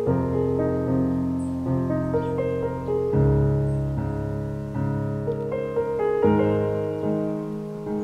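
Background piano music: slow, held chords that change every second or two.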